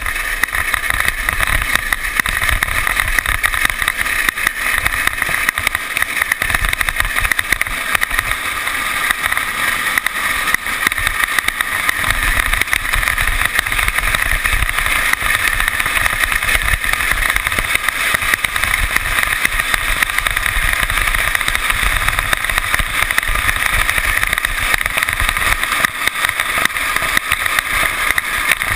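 Drift trike coasting fast downhill on asphalt: a steady rush of wheel and road noise with wind buffeting the camera microphone in an irregular low rumble.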